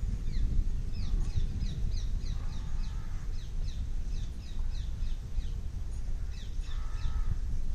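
Birds calling in quick series of short, high, falling chirps, about three a second, with a pause near the middle. A couple of lower calls come in twice. A steady low rumble runs underneath and is the loudest part.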